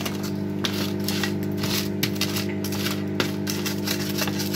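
Wooden spoon scraping stuck-on roast chicken off a baking tray in quick, irregular strokes, over a steady low electrical hum.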